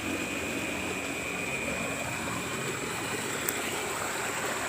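Water flowing steadily in a drainage ditch running high after rain, an even rushing sound.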